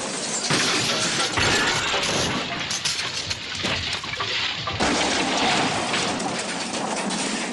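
A string of crashing and smashing sound effects with booms, spliced together, the sound changing abruptly about half a second in and again near the five-second mark.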